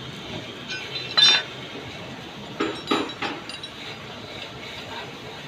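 Metal hand tools clinking and striking against steel parts: a sharp ringing strike about a second in, then a cluster of several clinks around three seconds in.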